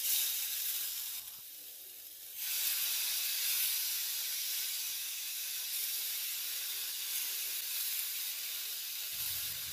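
Oil-marinated oyster mushrooms sizzling on a hot ridged cast-iron grill pan as pieces are laid down one after another. The steady hiss dips about a second in, then comes back stronger at about two and a half seconds as more pieces go onto the pan.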